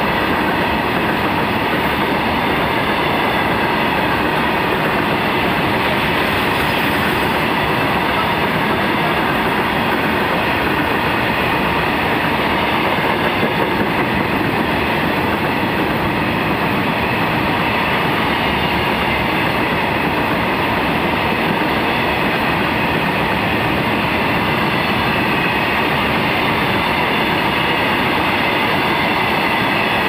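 Loaded coal hopper wagons of a freight train rolling past at speed: a steady loud rumble and clatter of wheels on the rails, with a faint high ringing running through it.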